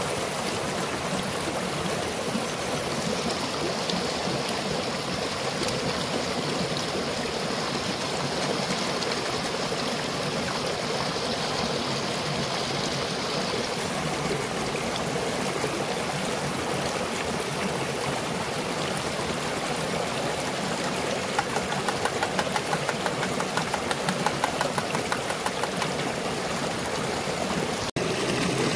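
Shallow river running over rocks, a steady rush of water.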